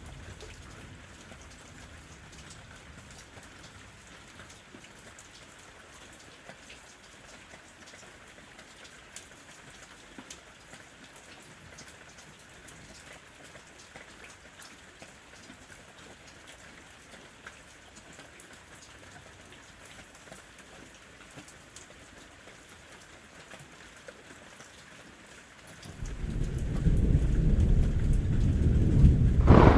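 Steady rain with scattered ticks of drops, then about 26 seconds in a loud, low rumble of thunder builds and carries on to the end.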